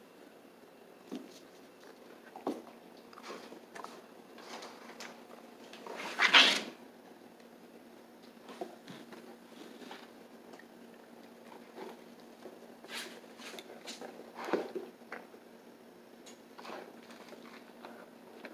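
A Rhodesian ridgeback mastiff sniffing and nosing at a kitten in a corner: scattered soft snuffles and scuffles, with one louder noisy burst about six seconds in.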